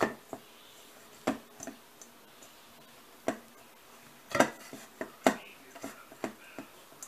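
Hands kneading and pressing dough in a stainless steel mixing bowl: irregular knocks and taps as hands and dough strike the metal bowl, the loudest a pair about four and a half and five seconds in.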